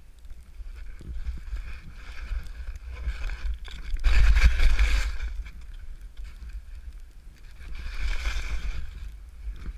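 Skis hissing through fresh powder snow, with two louder swishing turns, about four seconds in and again near eight seconds. Wind buffets the camera microphone underneath as a steady low rumble.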